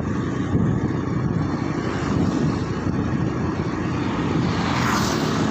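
Steady drone of a motorcycle being ridden, its engine hum mixed with wind buffeting the microphone, with a brief swell of hiss near the end.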